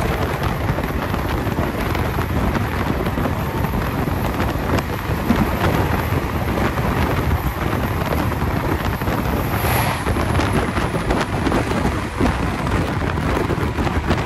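Wind buffeting the microphone over the steady running rumble of a moving locomotive-hauled train, heard from an open window of the train.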